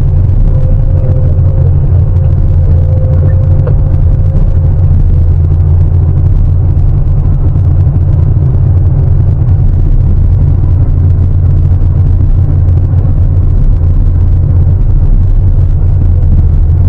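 Large hydraulic excavator's diesel engine running steadily, a loud low rumble, with a faint whine over it in the first few seconds.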